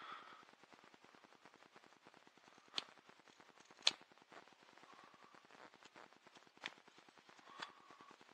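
Carving knife paring small shavings off the edges of a small wooden paddle to round and smooth them: faint cutting with a few sharp snicks, the loudest two about three and four seconds in.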